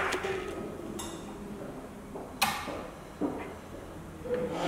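Handling noise from a plastic instrument housing being tilted and cable plugs being fitted into its side sockets: a few separate knocks and clicks, the sharpest about halfway through.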